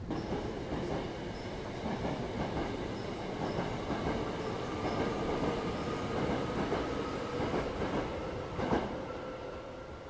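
Hankyu Itami Line electric train running on curved track, with a faint steady wheel squeal and a sharp rail click near the end.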